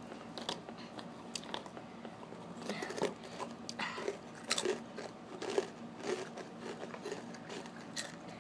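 Takis rolled corn tortilla chips being bitten and chewed, with irregular crisp crunches.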